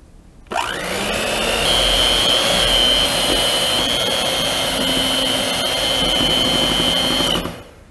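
Electric hand mixer switched on, its motor whine rising quickly, then running steadily with its beaters whipping a thick, half-frozen coconut ice-cream base. It switches off near the end.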